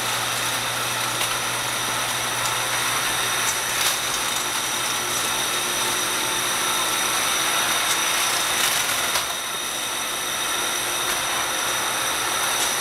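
A metal-cased electronics box rolling down a gravity roller conveyor over its steel rollers: a steady rolling rattle with a few faint clicks as it crosses the rollers.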